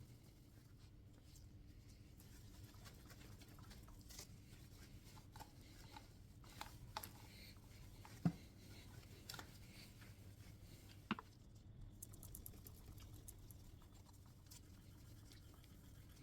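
Faint handling noises from hand-polishing a two-stroke motorcycle's expansion chamber and silencer: scattered light clicks and taps, the sharpest about eight seconds in, and a quick run of faint ticks a little later, over a low steady hum.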